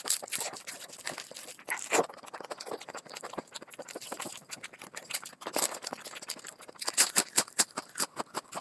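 Close-miked eating sounds: fingers squishing and mixing rice with curry on a plate, and wet chewing and lip-smacking, heard as a run of many irregular sharp clicks.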